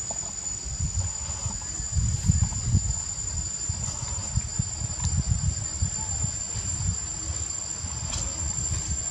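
Insects droning with a steady, high-pitched buzz, over a low, uneven rumble.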